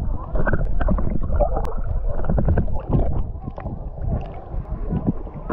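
Muffled underwater sound picked up by a submerged action camera: water sloshing and gurgling with a low rumble and scattered sharp clicks. It gets quieter about three seconds in.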